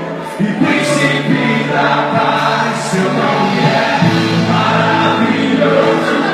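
Gospel worship music: a group of voices singing together over instrumental backing, with long held notes.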